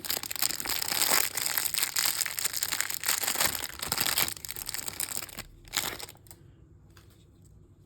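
Crinkly plastic wrapping of a toy mystery bag crackling as it is handled and opened, dense for about six seconds and then dropping away to a few faint rustles.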